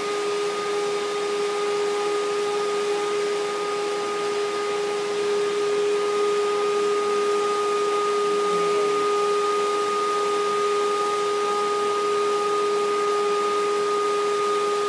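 Vacuum cleaner running steadily with a constant hum over rushing air, its hose nozzle drawn through a dog's fur.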